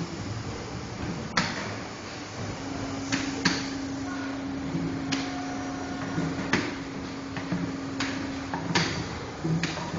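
Steady factory machinery noise with several sharp, irregular clacks of plastic pails being knocked together and stacked. A steady low hum comes in for several seconds in the middle.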